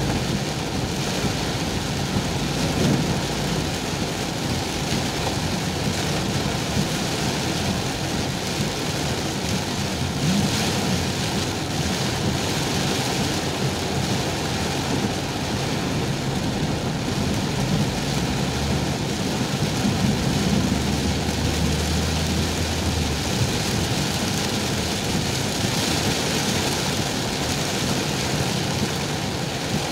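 Very heavy rain pounding on a car's roof and windshield, heard from inside the cabin as a loud, steady rush over the car's running noise. A low rumble swells for a few seconds about two-thirds of the way through.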